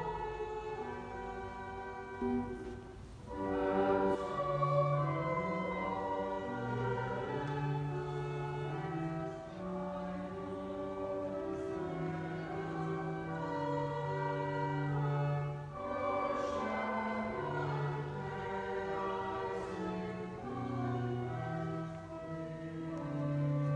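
A choir singing a hymn in long held chords, with the low notes changing every second or two.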